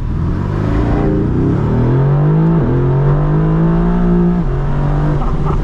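Mercedes-AMG GT R's twin-turbo V8 pulling hard under acceleration, rising in pitch. It drops sharply about two and a half seconds in as a gear changes, climbs again, and drops once more near four and a half seconds to run at a steady lower pitch.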